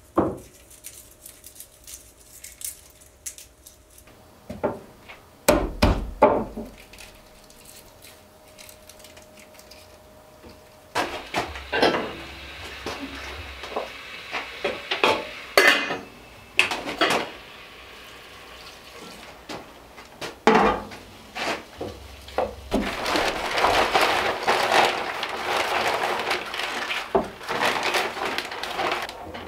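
Kitchen food preparation on a wooden counter. A knife knocks on a wooden cutting board, pans and cookware clank, and a long crackling rustle runs through the last several seconds.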